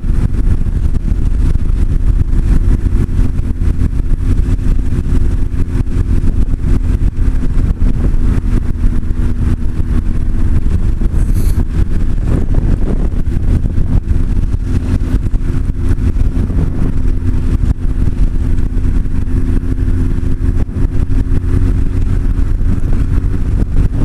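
Honda CB1300's inline-four engine running at steady cruising revs, with wind buffeting the microphone as a heavy low rumble.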